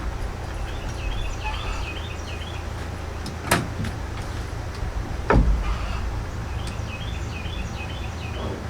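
A steady low hum runs throughout, with a sharp click about three and a half seconds in and a louder knock a couple of seconds later; birds chirp in the background.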